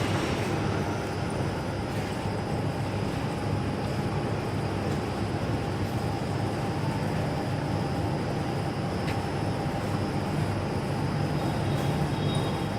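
Two-lane plastic bag cutting and heat-sealing machine running steadily, a continuous machine drone with a faint steady whine over it.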